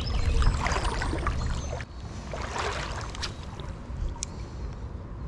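Creek water sloshing and trickling, louder for the first couple of seconds, with a few faint clicks near the middle.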